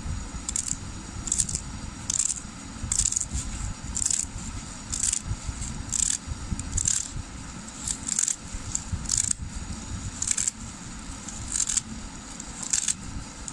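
Small kitchen knife slicing through a bunch of spinach stems and leaves held in the hand, with a short crisp snip a little more often than once a second.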